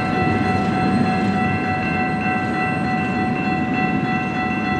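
Grade-crossing bell ringing steadily over the rumble of a CN freight train rolling through the crossing.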